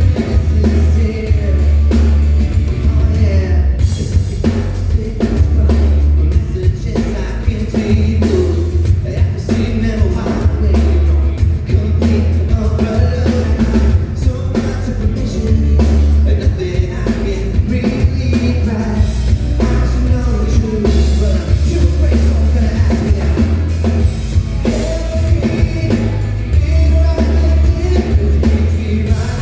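A live band with drums and heavy bass playing a pop-rock song with a lead vocal, loud and bass-heavy throughout.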